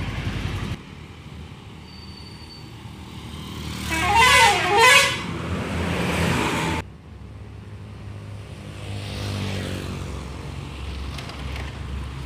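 Indonesian 'telolet' multi-tone bus horn playing a short warbling tune about four seconds in, its pitch swinging up and down twice. Bus engine and road noise rumble underneath.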